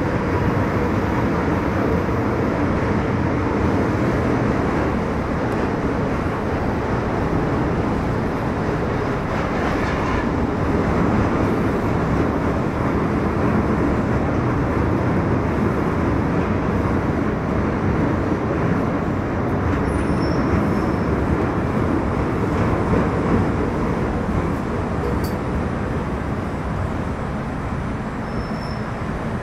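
Interior running noise of an MTR Metro Cammell M-Train (C250 I-Stock) electric multiple unit travelling in tunnel: a steady, loud rumble of wheels on rail, easing slightly near the end.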